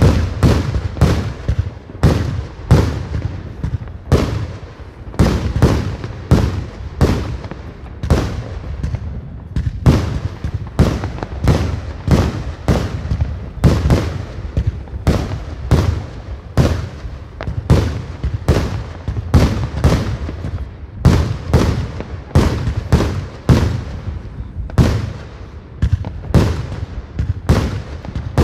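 Aerial fireworks bursting in rapid succession: a steady run of sharp bangs, about two a second.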